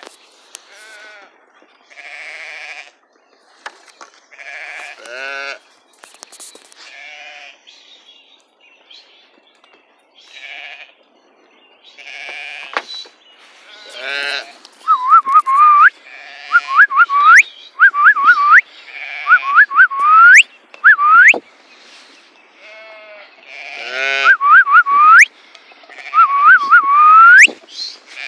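A flock of sheep and lambs bleating, many separate overlapping calls. From about halfway through, someone whistles over them again and again in short notes that rise sharply in pitch, louder than the bleating.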